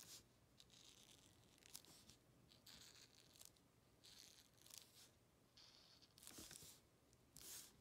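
Faint scratching of a felt-tip marker on paper in short, irregular strokes, about ten of them, as the drawing is shaded in. The last stroke is the loudest.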